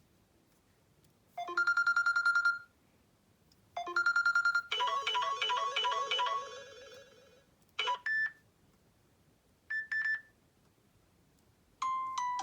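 Samsung Galaxy J2 Prime stock ringtones played one after another in short snippets. First comes a rapid trilling ring, twice, then a short rhythmic electronic tune and two brief chimes. Another melody begins near the end, and there are silent gaps between the tones.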